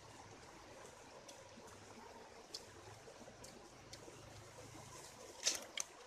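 Faint steady trickle of a shallow stream, with a few small crackles and clicks from crisp grilled duck being torn apart and eaten; the loudest two come close together near the end.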